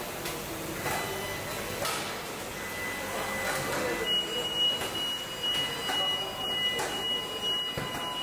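Factory noise of a car body-shop robot line: industrial robot arms and machinery running, with soft hisses about once a second. A steady high-pitched tone, like a machine beep, joins about halfway through and keeps going.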